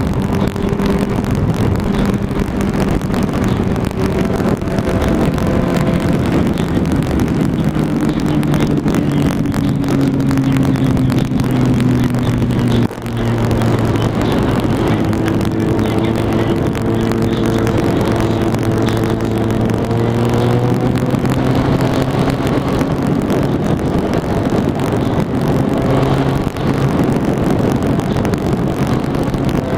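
Sport bike engine running at highway speed under wind rush. The engine pitch sinks slowly, breaks off for an instant about thirteen seconds in, then holds and rises and falls gently with the throttle.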